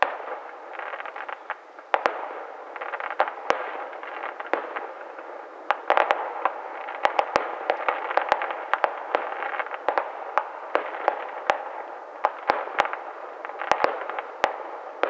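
Aerial fireworks display going off: a rapid, irregular series of sharp bangs over continuous crackling, growing busier about halfway through.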